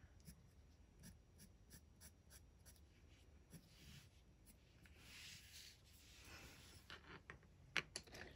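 Faint scratching of a colored pencil drawing short strokes on textured paper, laying fine lines of fur texture. A few light clicks near the end.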